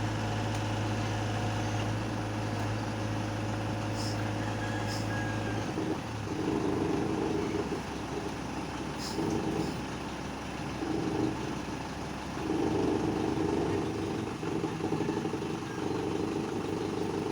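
Heavy vehicle engine running steadily, then from about six seconds in its note rises and it speeds up in repeated surges, rising and falling several times.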